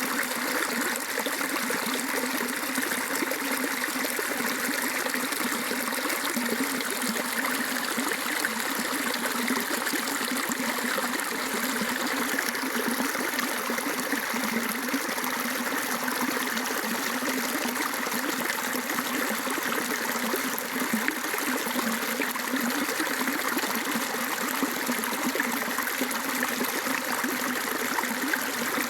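Rainwater flowing steadily in a small stream or runoff channel, trickling and splashing.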